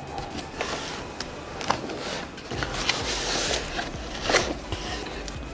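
Cardboard box being opened by hand and the paper inside handled: rustling and scraping, with a few light clicks and taps.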